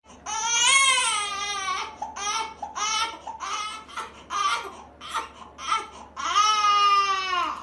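Newborn baby crying: a long wail, then a run of short cries, then another long wail near the end.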